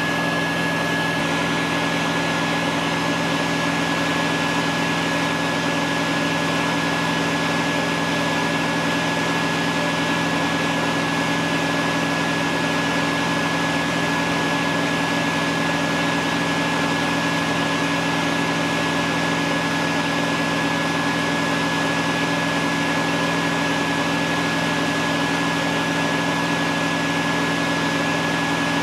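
Steady drone of a shop-vac motor running on a bucket bee vacuum, with a high whine over a low hum and no change throughout. A Honda portable generator powering it runs alongside.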